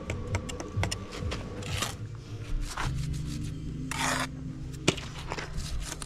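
Steel brick trowel scraping lime mortar on top of a brick pier: a few short scrapes, the longest about four seconds in, and a sharp tap just before five seconds.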